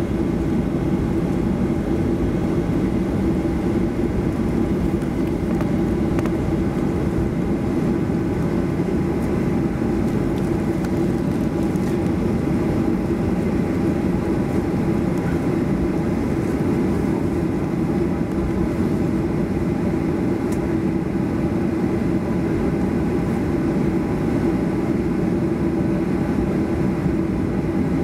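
Steady cabin hum inside a Boeing 737-800, from its CFM56 engines and air conditioning, with a strong low drone and faint steady higher tones.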